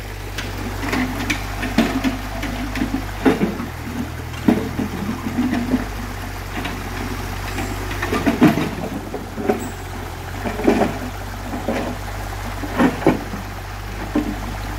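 Mini excavator's diesel engine running steadily, with irregular knocks and clanks from its work, over the rush of a fast-flowing river.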